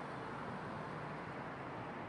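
Quiet city street ambience: a steady, even wash of distant traffic noise with no distinct events standing out.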